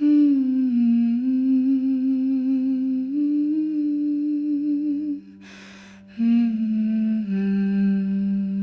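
Music from an AI-generated song: a voice humming two long wordless phrases over a steady low drone, with a short breathy break between the phrases a little past halfway.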